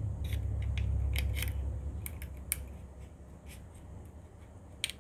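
Small sharp clicks and scrapes from handling and fitting the parts of a disassembled iPod Nano, over a low rumble of handling noise that fades after about two and a half seconds.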